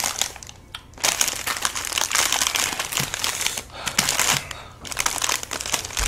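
Plastic ice cream bar wrappers crinkling and rustling as they are torn open and handled, in quick runs of crackle with brief pauses about a second in and twice between four and five seconds in.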